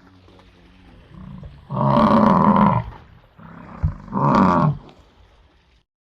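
Indian bison (gaur) bellowing: a loud call about a second long near 2 s and a shorter one near 4 s, each led in by a softer, lower grunt.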